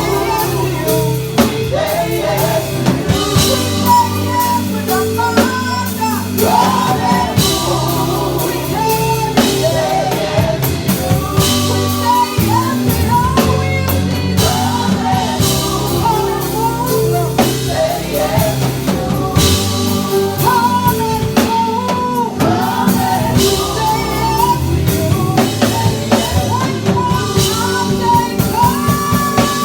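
Live worship band playing, with drum kit and singing voices over a sustained accompaniment.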